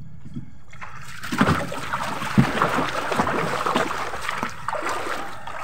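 Water splashing and sloshing against a small outrigger fishing boat, starting about a second in, with many small knocks and clicks through it.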